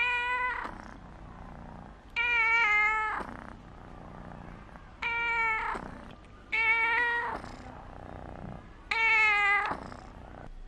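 A young ginger cat meowing again and again while being stroked: five loud, drawn-out meows, each under a second long and dropping a little in pitch at the end, about two seconds apart. They are the insistent attention-seeking meows of a cat acting spoiled.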